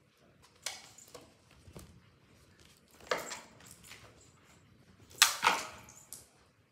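Cat batting a toy across a hard tiled floor: a few separate sharp clatters and skids, the loudest about five seconds in.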